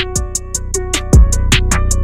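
Background music with a steady beat: a kick drum and quick hi-hat ticks about four times a second over a bass line.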